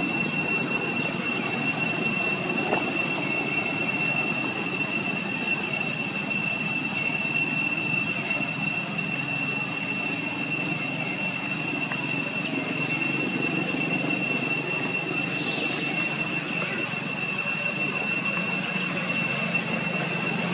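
A steady high-pitched whine that holds one pitch throughout, over a constant rushing background.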